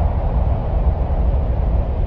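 Steady, unbroken wind-like rumble, heaviest in the deep bass, with a softer hiss above it. It is presented as the sound of Mars.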